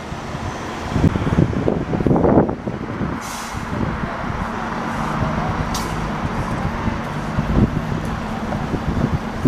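Alexander Dennis Enviro400 double-decker bus's diesel engine running steadily at a stop, with a short air hiss about three seconds in and a brief sharp one near six seconds. Before the hiss, street traffic rumbles in gusts.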